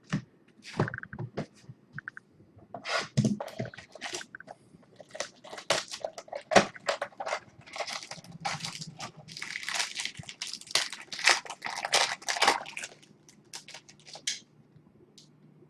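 Trading-card pack wrappers crinkling and tearing as packs are ripped open and the cards handled, in a rapid run of crackles and snaps that is busiest in the middle and dies away near the end.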